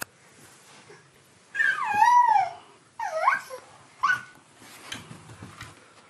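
A baby's high-pitched vocal squeals: three wavering cries with bending pitch, a long one about one and a half seconds in, a shorter one at about three seconds, and a brief one just after four seconds. A sharp click comes right at the start.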